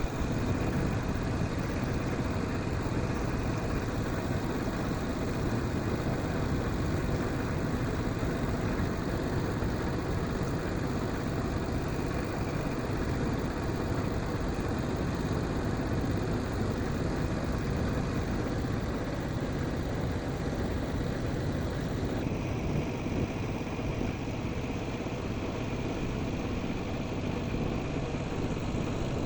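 An engine running steadily without pause, its sound shifting slightly about twenty seconds in.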